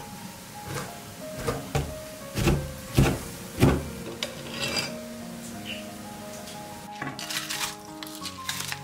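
Background music, with a series of about six sharp knocks in the first four seconds. Near the end, dry rice grains pour from a glass bowl into a pan, a quick rattling patter of many small ticks.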